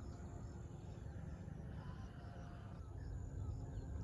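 Faint outdoor ambience: a low steady rumble with faint high chirps repeating evenly, and a few faint calls.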